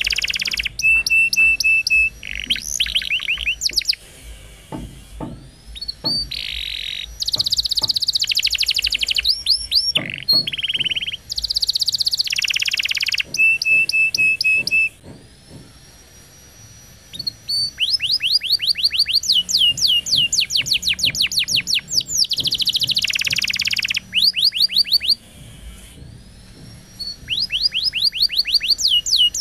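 Domestic canary singing a long, varied song. It runs through fast trills of repeated falling notes, buzzy rolls and short held whistles, breaking off briefly about halfway through and again a few seconds before the end.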